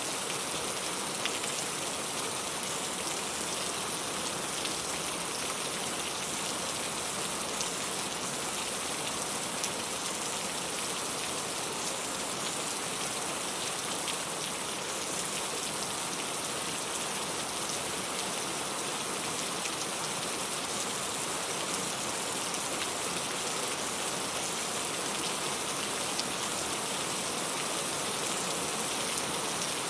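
Steady rain falling, a dense even hiss with scattered drops striking a surface.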